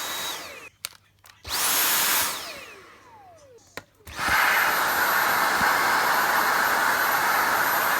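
Dyson V8 cordless stick vacuum switched on in short bursts: a brief run that winds down with a falling whine, then about four seconds in it starts again and runs steadily with a high whine.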